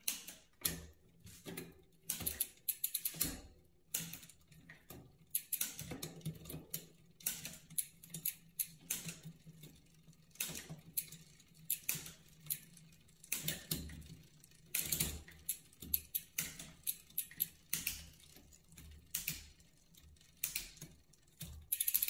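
SRAM Eagle 12-speed rear derailleur and chain being shifted across the cassette while the cranks turn, giving an irregular series of sharp clicks and clacks, about two or three a second, as the chain moves from cog to cog. The drivetrain is shifting smoothly now that the B-gap is set and the bent derailleur hanger has been straightened.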